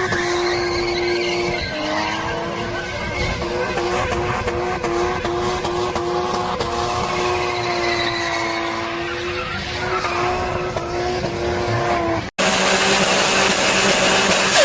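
Tuned turbocharged car engine held at high, steady revs, its note wavering slightly. About twelve seconds in it cuts abruptly to another loud car.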